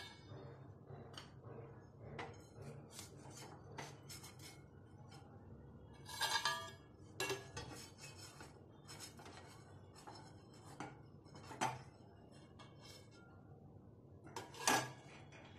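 Steel kitchenware clinking and scraping: a metal spatula working in a steel kadhai and against a steel plate, in scattered short clatters. The loudest come about six seconds in and near the end.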